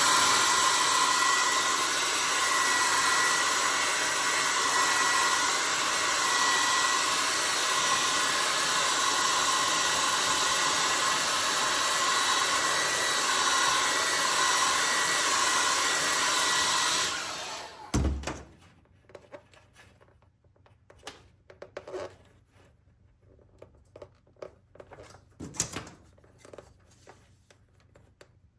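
Handheld hair dryer blowing steadily, then switched off about two-thirds of the way through. A thump follows as it is set down, then faint handling clicks.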